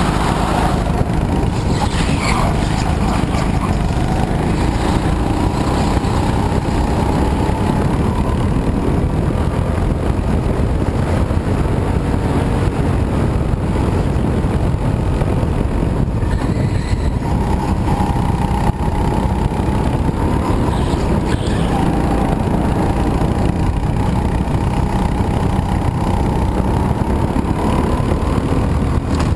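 Go-kart engine running at racing speed, recorded on board, its pitch rising and falling; heavy rumble and wind noise on the camera's microphone.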